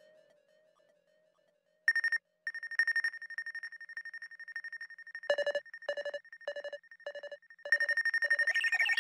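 Synthesized alarm-like tones from the SHR Tones dub-tool plugin. After a fading tail and a short silence, a high beeping tone with a fast flutter starts about two seconds in. Past the middle a lower tone joins it, switching on and off a little under twice a second, and a rising sweep comes in near the end.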